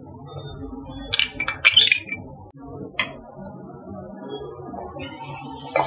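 A steel spoon clinks a few times against the rim of a pressure cooker about a second in, knocking ginger-garlic paste into onions frying in oil, with one more clink near three seconds. Oil sizzles steadily underneath and grows louder and hissier near the end.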